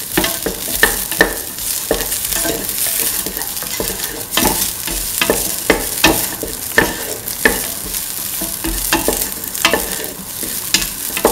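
Chopped onion and shallots sizzling in oil in a stainless steel pan while being stirred, the utensil scraping and clicking against the metal again and again at an uneven pace.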